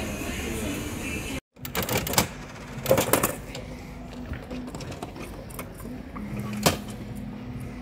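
Gacha capsule-toy vending machine being worked: its coin mechanism and dial handle clicking mechanically in two quick clusters, then one sharp click near the end.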